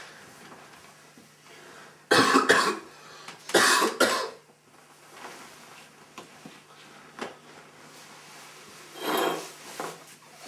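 A person coughing hard in two harsh bouts, about two and four seconds in, then a softer cough near the end, over a faint steady hum.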